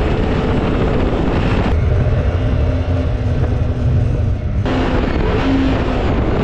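Mini jet boat's 1053cc Yamaha four-stroke engine running at speed through shallow river water, with the rush of the jet and water. The sound changes abruptly twice, about two and about five seconds in.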